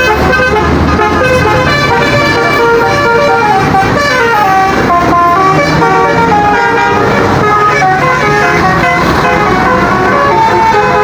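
Indonesian tour bus 'basuri' musical air horns playing a tune: a continuous run of short horn notes stepping up and down in pitch.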